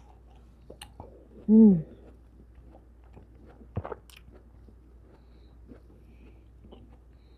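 Close-miked chewing of soft cantaloupe melon: small wet clicks and smacks of the mouth, with a short hummed "mm" falling in pitch about a second and a half in, the loudest sound, and a sharp mouth click near four seconds.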